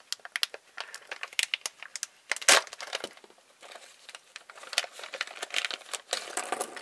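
Plastic blind bag crinkling and crackling in the hands as it is torn open, with one louder crackle about two and a half seconds in.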